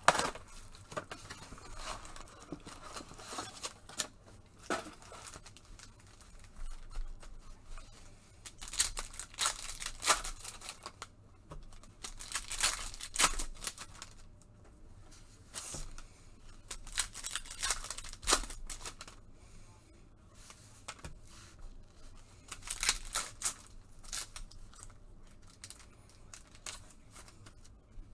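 2020 Prizm Football retail card packs being torn open, their wrappers ripping and crinkling in repeated short bursts every few seconds.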